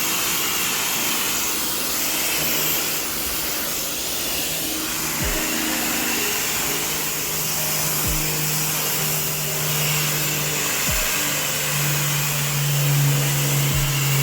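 Pressure washer spraying water in a steady, loud hiss, over background music with deep bass notes about every three seconds.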